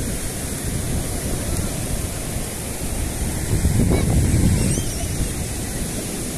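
Ocean surf washing onto a sandy beach: a steady rushing wash that swells a little about four seconds in.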